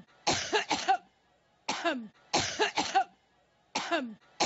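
A woman coughing in a looped sequence: a single cough trailing off in a falling voiced tail, then a quick run of three coughs. The same pattern repeats about every two seconds.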